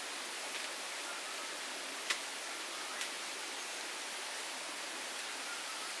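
Steady rush of running water from a waterfall and stream. A sharp click sounds about two seconds in, and a softer one a second later.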